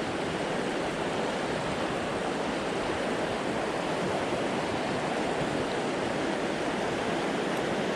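A high, fast river rushing steadily, an even wash of water noise with no breaks.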